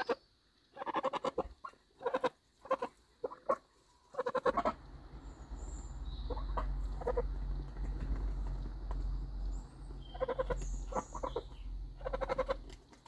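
Domestic geese giving a series of short honking calls, many in the first few seconds, a few faint ones in the middle and more near the end. A steady low rumble sets in about four seconds in.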